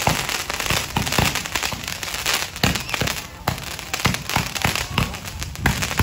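Fireworks going off close by: a rapid, irregular string of bangs and pops with crackling between them.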